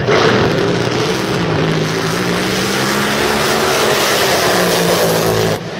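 Powerboat engine running steadily under way: a drone that drifts slightly up and down in pitch beneath a loud hiss. It breaks off abruptly just before the end.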